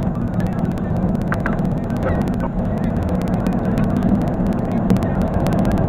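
Dashcam cabin audio sped up for a time-lapse: a dense, steady rush of road and engine noise broken by many sharp clicks and a few short squeaky chirps.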